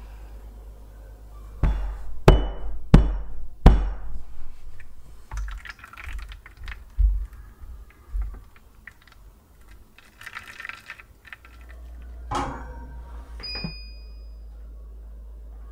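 Four sharp knocks of a metal cake pan on the counter, then small clinks and hot water poured into a baking tray for a water bath, a thump, and a short electronic beep from the oven's control panel.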